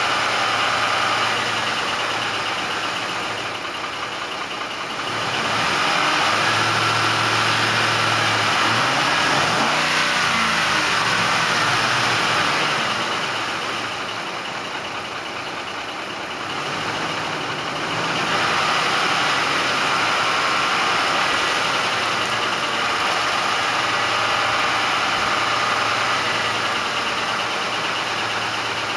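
2004 Ford F150's 5.4-litre three-valve V8 running with a tapping and slapping sound, its engine note rising and falling once about ten seconds in. The slapping is the timing chains hitting the engine block because the chain tensioners have failed, along with worn cam phasers.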